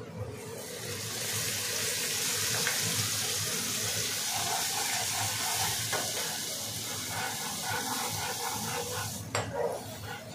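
Onions and masala paste sizzling in a hot pan just after a splash of water goes in, with metal clinks and scrapes of stirring. The sizzle builds in the first second and stops suddenly about nine seconds in.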